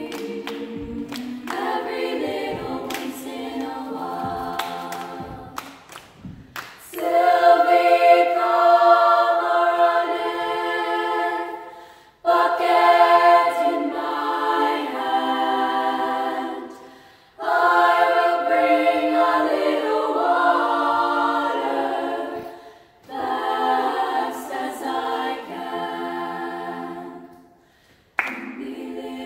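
Children's choir singing a cappella in phrases, with short breaks between them about every five to six seconds. A few sharp knocks sound in the first few seconds.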